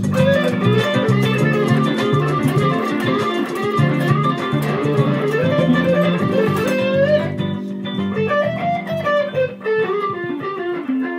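Electric guitar improvising a lead line in D Dorian, full of bends and slides, over a backing track with a steady rhythm. The rhythm's high clicks stop about seven seconds in, and the guitar phrases on alone toward a closing note.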